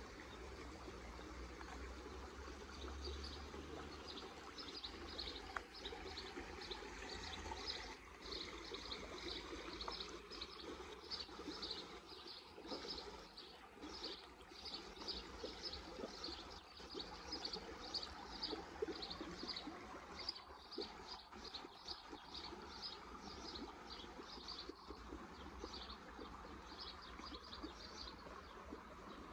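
A high chirp repeating about twice a second, very regularly, over a faint steady outdoor hiss.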